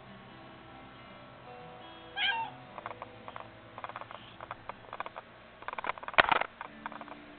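A black-and-white domestic cat gives one short meow about two seconds in, over background music. It is followed by a run of clicks and knocks as the cat bumps right against the camera, with the loudest knock about six seconds in.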